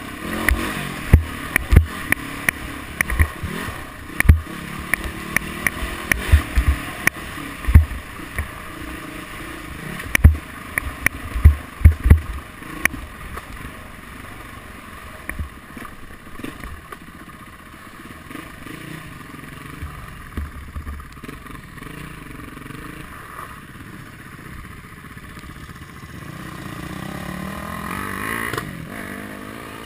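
Dirt bike engine running while riding a rough dirt trail, with frequent sharp knocks and thuds over the bumps through the first half. It turns steadier and quieter after that, and the engine sound rises again near the end.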